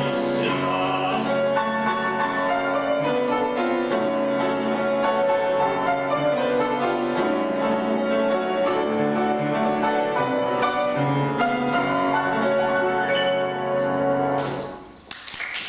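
Piano playing the closing bars of a classical art song after a male singer's last note dies away in the first second; the piano stops about fifteen seconds in and applause breaks out.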